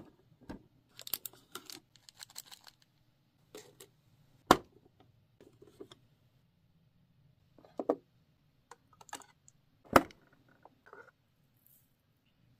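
Small plastic clicks, taps and light rattles from handling Miniverse Make It Mini Kitchen miniature pieces: a tiny cabinet door opening and tiny jars and containers being picked up and set down. Two sharp clicks, about four and a half seconds in and near ten seconds, are the loudest.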